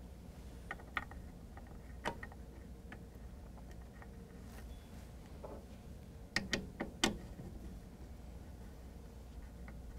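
Light clicks and taps of a plastic injector cap being handled and fitted by hand into a water softener control valve: a few faint clicks in the first two seconds, then a handful of sharper clicks about six to seven seconds in.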